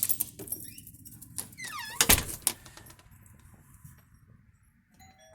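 A short high squeak, then a loud thump about two seconds in with a lighter knock after it. Near the end an electronic doorbell chime starts, two ringing tones one a little lower than the other.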